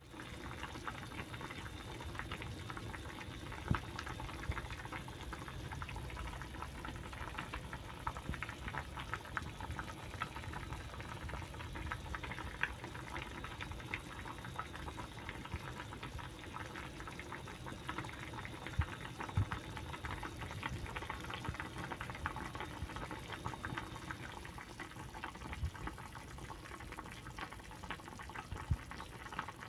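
Pork sinigang broth with long beans and tomatoes boiling in a pot: steady bubbling with many small pops and a few louder ones.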